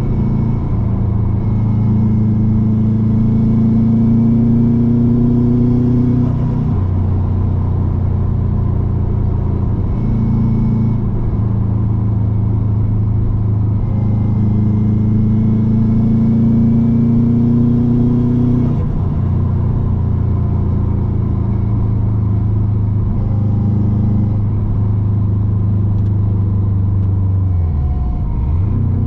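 Subaru WRX wagon's turbocharged flat-four heard from inside the cabin, pulling hard twice with the engine note climbing and a faint whistle rising with it. Each pull ends abruptly as the throttle closes, about six seconds in and again about nineteen seconds in, where the newly fitted Turbosmart dual-port blow-off valve vents. Between the pulls it cruises at a steady lower note.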